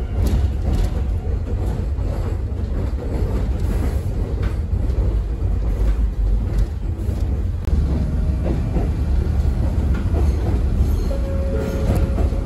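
Kōnan Railway Ōwani Line electric train running, heard from inside the passenger car: a steady low rumble with scattered wheel clicks over the rail joints. A steady whine comes in near the end.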